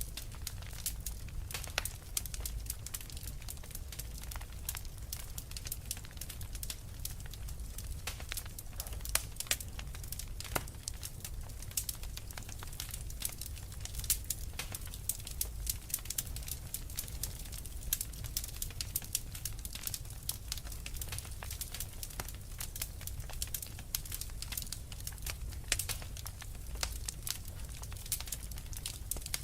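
Wood fire crackling: a steady run of small sharp pops and snaps over a low, even rumble.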